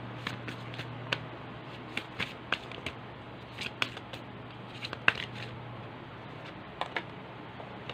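A deck of tarot cards shuffled by hand: irregular soft snaps and slides of the cards, the sharpest about five seconds in, over a low steady hum.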